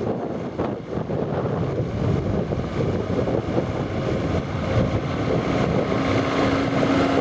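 Diesel engine of a telehandler driving across a field toward the microphone, slowly growing louder as it approaches; a steady low hum joins near the end.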